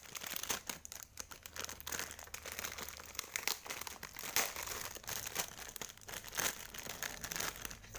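Toy packaging being unwrapped by hand: irregular crinkling and tearing sounds.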